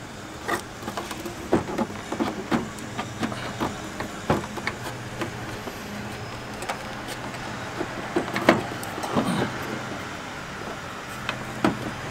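Scattered clicks and knocks of hands working plastic parts loose on a car's headlight assembly, over a steady low hum.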